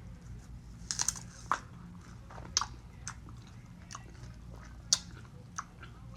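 A strawberry coated in glittery blue raspberry fruit spread being bitten and chewed, with sharp crunchy crackles every second or so, the loudest about five seconds in.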